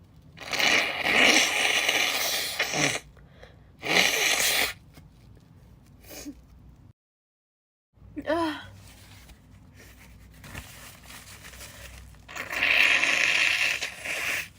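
A young woman sneezing: three loud, hissing bursts, a long one about half a second in, a shorter one near four seconds and another long one near the end. Between them is a brief pitched vocal sound.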